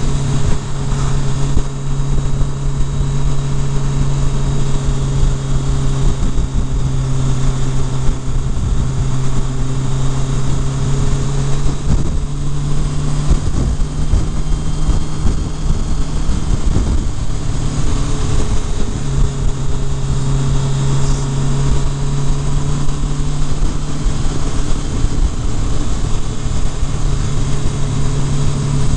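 Kawasaki Concours ZG1000's inline-four engine running steadily at cruising speed, with wind rush over the microphone. The engine note fades for a few seconds about halfway through, then returns.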